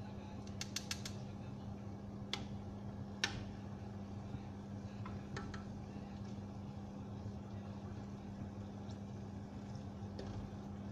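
Metal tongs and a spoon clicking and tapping against a steel pot while turning frying zeppole: a quick run of clicks about half a second in, then scattered single taps, the sharpest about three seconds in. A steady low hum runs underneath.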